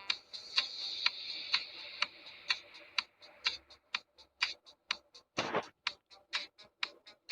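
Regular clock-like ticking, about two ticks a second, speeding up to about four a second halfway through, with one longer, louder noisy burst about five and a half seconds in.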